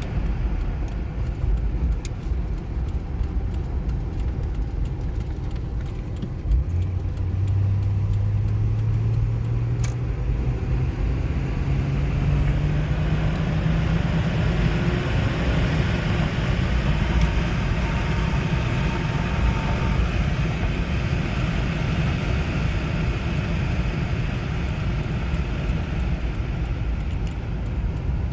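2004 Chevrolet Trailblazer being driven, with steady engine and road rumble. There is a thump about six seconds in, then the engine note rises steadily for several seconds as the truck accelerates.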